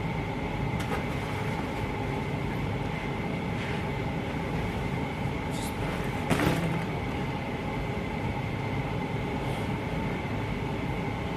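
Steady machine hum with a faint high steady whine, with a brief rustle about six seconds in.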